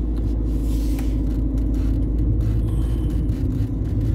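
Car engine running with a steady low rumble, heard from inside the cabin.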